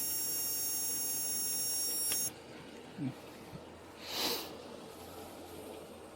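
Portable breath tester sounding a steady high-pitched tone while air is blown into it, cutting off suddenly about two seconds in. A short hiss follows about four seconds in.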